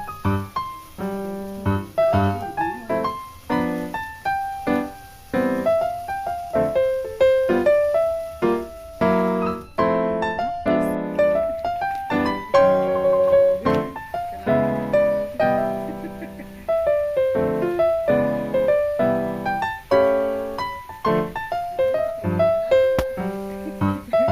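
Background piano music: a continuous melody of struck notes over chords.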